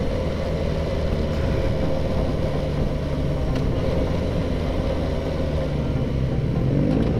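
Yamaha XJ600's inline-four engine running steadily while riding, with wind and road noise. Near the end the engine note climbs as the bike accelerates.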